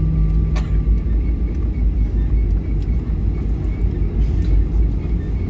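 Airliner cabin noise during the landing rollout: a loud, steady low rumble and roar from the engines and the wheels running fast on the runway as the jet slows after touchdown.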